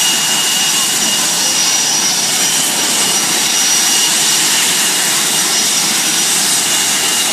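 Blue Angels F/A-18 Hornet jet engines running after start-up: a loud, steady rush of noise with a thin high whine on top.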